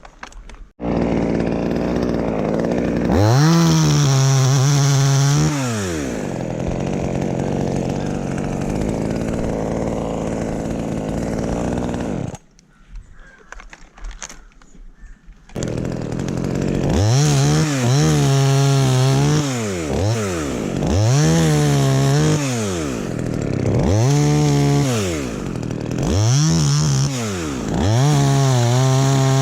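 Chainsaw engine starting up and running, revved up and back down in repeated bursts with idling between. It cuts out about twelve seconds in and starts again about three seconds later.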